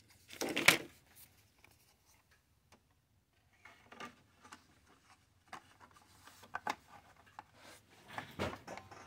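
Scissors cutting thin white plastic sheet, with one loud snip under a second in. Then light clicks and rustles as the plastic pieces are handled and set down on the wooden workbench.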